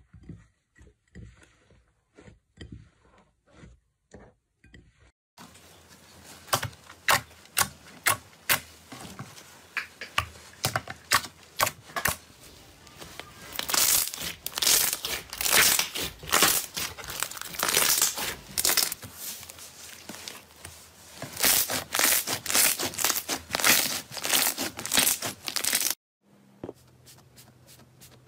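Hands squeezing and folding glossy slime, making rapid sticky clicks and crackles. For the first few seconds the squishing is soft and faint, then it turns loud and dense, and it drops off suddenly near the end.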